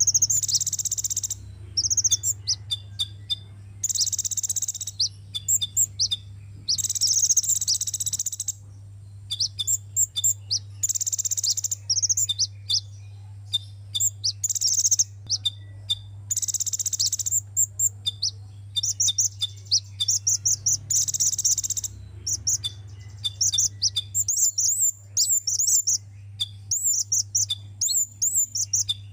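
Sunbird song: high, fast twittering phrases about a second long, repeated with short pauses, turning into quick runs of short sharp chirps near the end.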